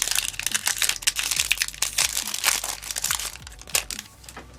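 Foil booster-pack wrapper crinkling as it is handled and torn open. The dense crackle is busiest for the first three and a half seconds, then thins out.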